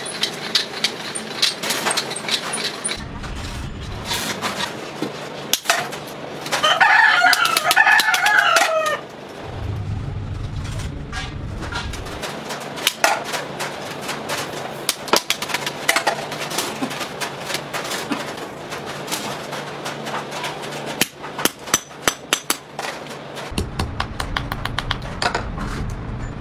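A rooster crows once, about seven seconds in, over a run of sharp metallic taps and clinks from steel strip being worked and hammered by hand.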